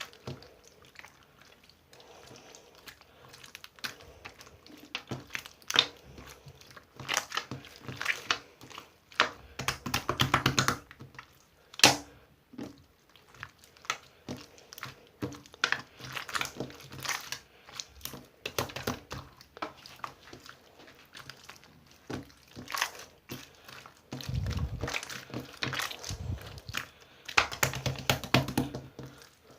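Hands squishing and pressing slime, with clusters of small wet clicks and pops.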